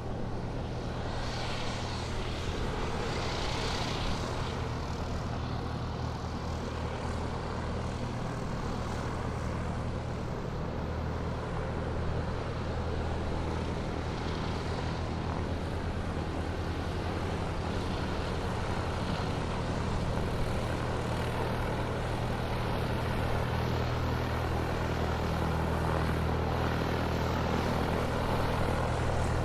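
Airplane taxiing, its engines running steadily at low power with a continuous low hum, slowly growing a little louder.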